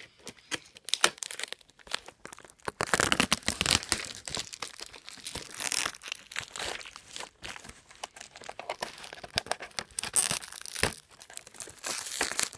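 Plastic shrink wrap being torn and peeled off a VHS tape case, crinkling and crackling in irregular bursts, sparse at first and busier from about three seconds in.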